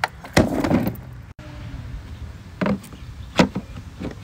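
Handling noises of Milwaukee Packout hard plastic cases and M18 batteries: a short rustling clatter about half a second in, then a few sharp plastic knocks and clicks.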